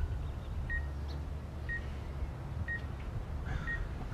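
Drone remote controller sounding short, high-pitched warning beeps about once a second, four in all, over a low steady rumble.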